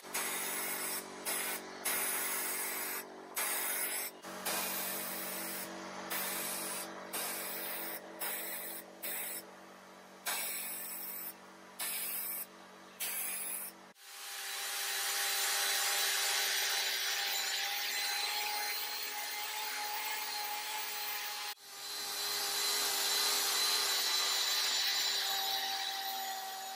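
A sandblaster with a vacuum-shrouded nozzle fires short hissing blasts at a painted pine door panel, about a dozen on-off bursts over a steady machine hum. About halfway through, a drill takes over, spinning a nylon abrasive brush against the bare pine in a steady whine that cuts out briefly and starts again.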